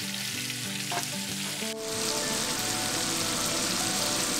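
Sliced onions sizzling in bacon grease in a stainless steel frying pan. About two seconds in, the sizzle turns much louder and stays steady.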